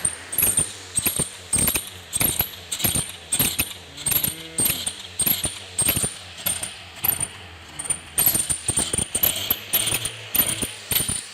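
Ratchet wrench clicking in short, irregular strokes as bolts are worked loose on the engine, over a faint steady low hum.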